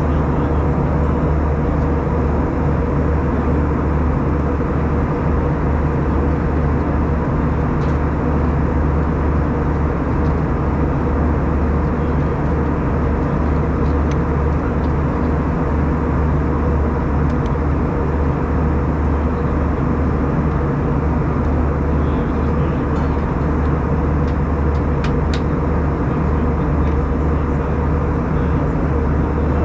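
Steady in-flight cabin noise of an Airbus A320-214: a constant rush of airflow and engine hum with a few steady low tones.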